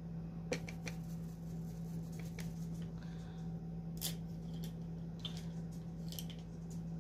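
Faint scattered clicks and taps of small objects being handled, over a steady low hum.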